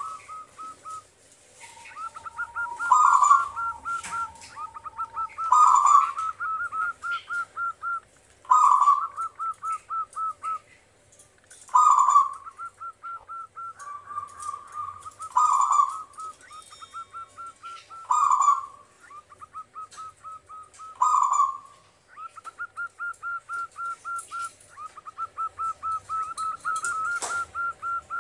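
Zebra dove (perkutut) singing its cooing song: phrases repeated every few seconds, each a loud opening coo followed by a quick run of short staccato coos.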